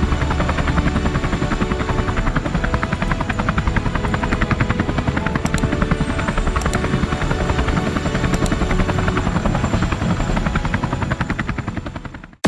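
Helicopter in flight: the rotor's fast, steady beating and the engine's running noise, fading out near the end.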